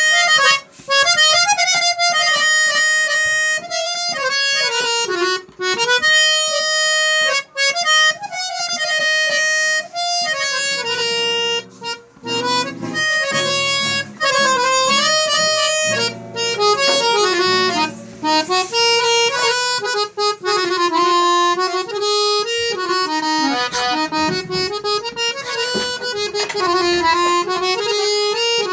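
Harmonium being played: a reed melody line, with lower held chord notes sounding under it through the middle stretch.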